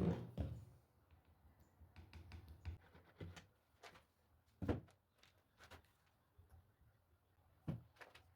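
Scattered knocks and thunks with small clicks between them, from wood and tools being handled at a workbench. The loudest knock comes right at the start, and there are two more clear ones about four and a half and seven and a half seconds in.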